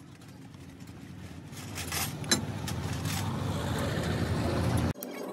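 A motor vehicle's engine running, growing steadily louder, then cut off abruptly near the end. There is a sharp click about two seconds in.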